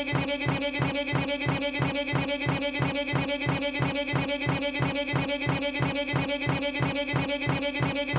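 A short pitched sound looped rapidly and mechanically, repeating evenly about four times a second over a steady droning tone, with a string-like musical quality.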